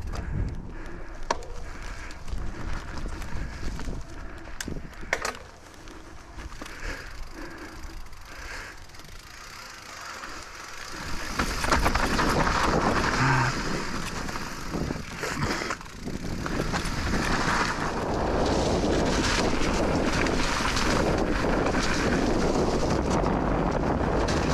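Specialized Turbo Levo electric mountain bike riding over rough trail, with scattered clicks and rattles from the tyres and frame. About halfway through, wind noise on the microphone swells and then stays loud and steady as the bike picks up speed.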